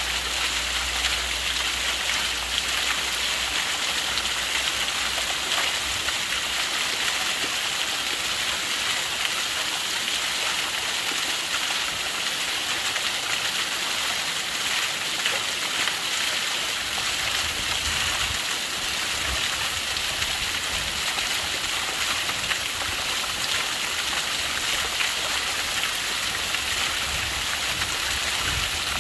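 Small waterfall splashing and rushing steadily, a constant hiss of falling water.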